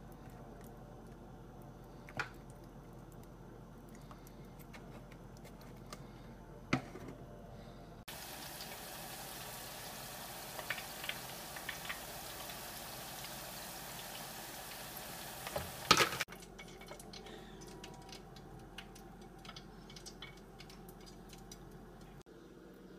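French fries deep-frying in an electric deep fryer: a steady sizzle of hot oil with scattered crackles starts about a third of the way in and ends with a sharp clatter about two-thirds in. Before and after it there is only low room noise with a few small clicks.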